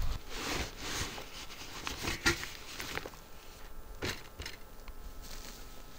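Camp gear being handled: rustling and scuffing of cord, fabric and pack, with a few footsteps on forest ground and sharp clicks about two and four seconds in.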